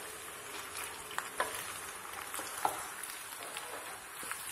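Penne with beef mince sizzling in a frying pan as it is stirred and tossed, with a few light knocks and scrapes of the stirring utensil.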